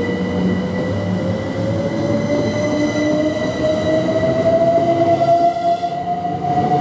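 Class 387 electric multiple unit accelerating away from the platform, its traction motors giving a whine that rises slowly and steadily in pitch, over the low rumble of its wheels on the rails.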